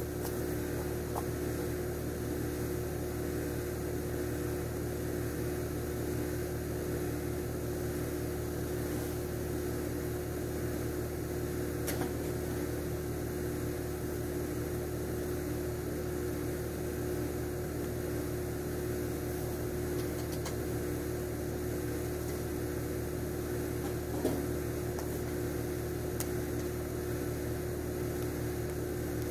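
Steady low mechanical hum of a running motor or fan unit, unchanging throughout, with a couple of faint knocks.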